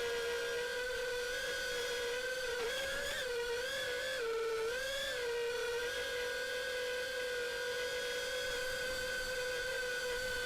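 The brushless motors and propellers of a 5-inch FPV quadcopter whining at a steady pitch. The pitch wavers up and down with throttle changes for a few seconds in the middle.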